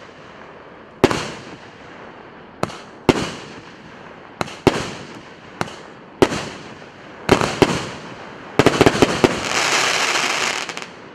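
A 36-shot, 1.2-inch consumer firework cake firing, each shell bursting with a sharp bang about every second. Near the end a quick volley of bangs gives way to a dense crackling from crackling-star bursts, which fades out.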